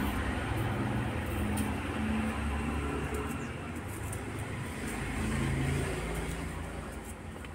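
Low rumble of a running vehicle engine, swelling about five seconds in and then fading toward the end.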